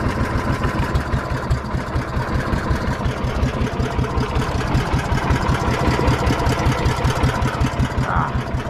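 A small fishing boat's engine running steadily, heard from on board as a low hum with fast, even pulsing.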